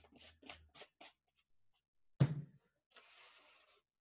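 Objects being handled on a tabletop: a quick run of short scratchy rubbing strokes, then a single sharp knock about two seconds in, followed by a brief rustle.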